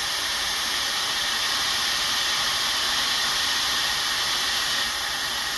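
OhJump brushless ionic hair dryer running: a steady, even rush of blown air from its high-speed fan.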